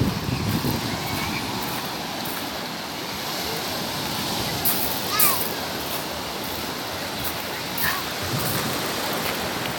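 Sea surf washing steadily onto the shore, with a louder wave splash about five seconds in.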